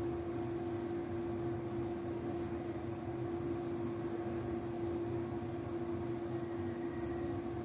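Steady electrical and mechanical hum from a DIY pick-and-place machine standing still, a constant mid-pitched tone over low noise, with two faint high ticks about two seconds in and near the end.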